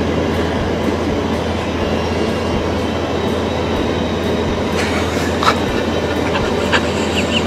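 Steady rumble and low hum of a commercial kitchen's extractor hood and ovens running, with a few light clicks in the second half.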